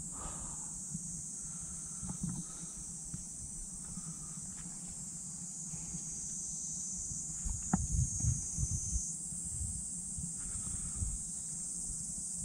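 Cicadas droning steadily at a high pitch, over a low rumble, with a sharp click and a few soft thuds a little past the middle.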